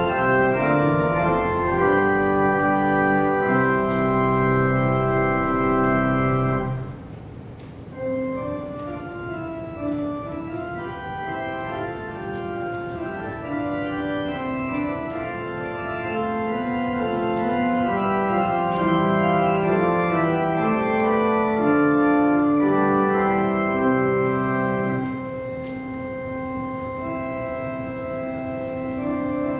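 Pipe organ playing held chords. A loud full chord with deep bass ends about seven seconds in, and the playing carries on more softly, then gradually swells again.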